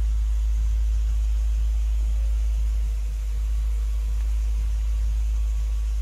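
Steady low rumble with a faint, evenly repeating pulse underneath.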